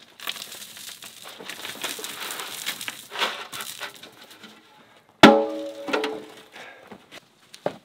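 Rough scraping and rubbing on the concrete top of a block oven base for about four seconds. Then, about five seconds in, a loud clang of a metal pail that rings on and fades over about a second.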